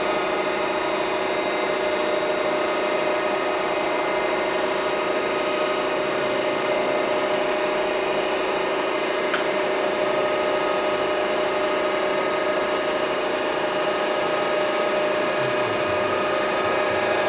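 Okamoto ACC-1224DX surface grinder running: its spindle motor and hydraulic pump give a steady hum with a constant whine while the spinning wheel is lowered by hand to just touch the top of the part.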